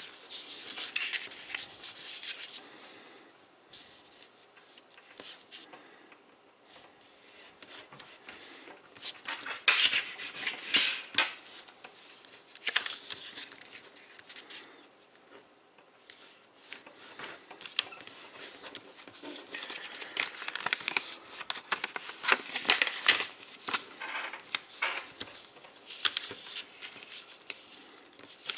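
Thick 100 gsm origami paper being folded and creased by hand: fingers and nails scraping along the folds and the sheet rustling and sliding on a tabletop, in bouts with quieter stretches between.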